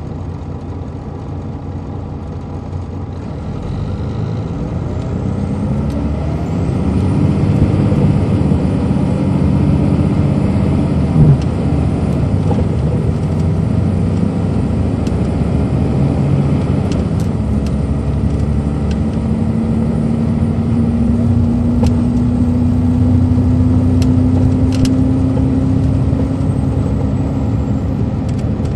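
A coach's Detroit Diesel Series 60 engine heard from on board, growing louder from about four to seven seconds in as the bus pulls harder, then running steadily under load. A tone rises slowly through the second half, and there is one sharp click near the middle.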